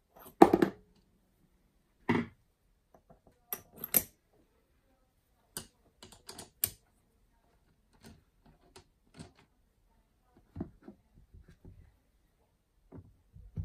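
Steel parts of a milling attachment on a small lathe being handled and fitted: irregular metal clicks and knocks, a few louder ones in the first four seconds, then lighter taps.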